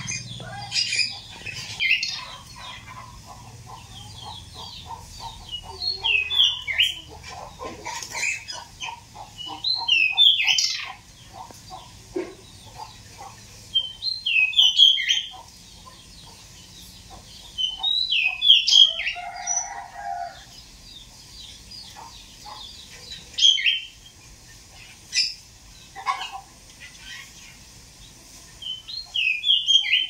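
Caged male pied bushchat (decu) singing: short, bright phrases of quick rising and falling notes, one every few seconds, with fainter rapid lower-pitched ticking under the first part.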